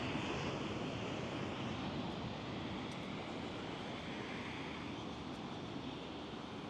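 Surf breaking on a sandy beach: a steady wash of waves, slowly growing a little quieter.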